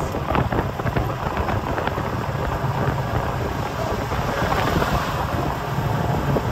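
Open golf cart driving along a paved road: wind buffeting the microphone over the cart's steady running noise and tyre rumble.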